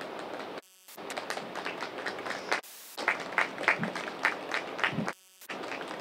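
Audience applauding, with scattered claps growing denser about halfway through. The sound cuts out briefly twice.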